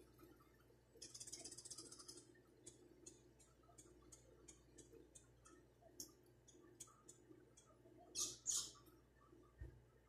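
Small birds chirping: short high-pitched chirps scattered through, with a rapid run of twittering about a second in and the loudest chirps near the end.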